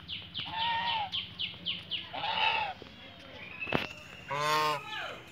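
Domestic geese honking: two drawn-out honks, about half a second in and about two seconds in, over a fast run of high falling chirps. A sharp knock comes shortly before a louder, harsher call near the end.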